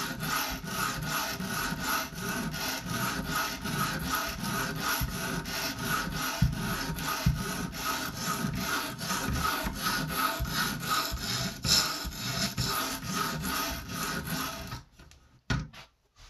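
Coarse 120-grit sharpening stone on an Edge Pro guided sharpener, rubbed in quick even strokes along a small knife's edge at about three strokes a second. It is cutting a fresh 21-degree bevel. The strokes stop about a second and a half before the end, followed by a single click.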